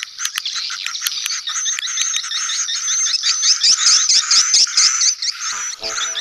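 Edible-nest swiftlet colony calls: a dense chorus of overlapping high twittering chirps, a 'sedot anakan' lure recording played in swiftlet houses to draw young birds in. A lower steady tone joins in near the end.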